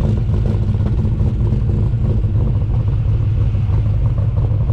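1979 Chevrolet Camaro driving: a steady, loud low drone of engine, exhaust and road noise.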